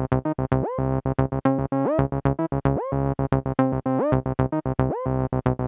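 MAM MB33 analog bass synthesizer, a TB-303 clone, playing a fast repeating acid bassline of short staccato notes, about eight a second, some with a resonant upward filter sweep, while its oscillator tune control is being adjusted.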